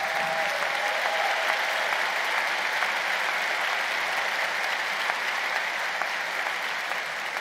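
A large seated audience applauding steadily, a dense even clapping that eases slightly near the end.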